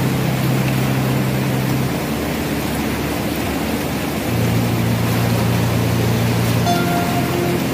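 Background music: held low chords that change twice, over a steady rushing noise, with a higher melody coming in near the end.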